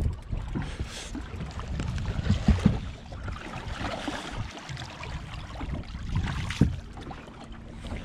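Wind buffeting the microphone and choppy lake water splashing against a boat, with a few sharp thumps, the loudest about six and a half seconds in.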